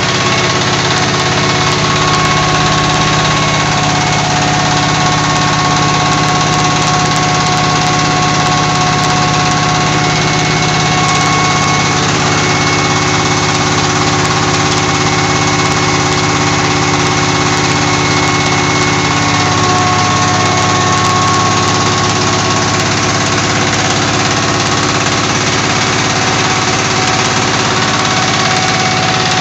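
A 25 HP stationary diesel engine running flat out, driving a belt-driven flour mill (atta chakki) that is running with it. The two make a loud, steady noise with a constant hum and does not change.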